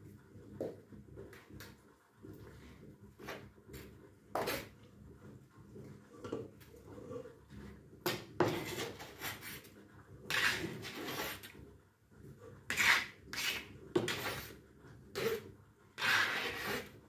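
Kitchen knife cutting ham into cubes on a thin plastic cutting board: irregular knocks of the blade against the board, with a few longer scraping sounds about ten seconds in and near the end.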